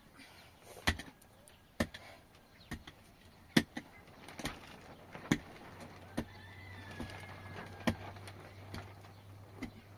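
Sharp knocks at a steady pace of about one a second, like blows of a hand tool. A faint low hum joins about halfway through.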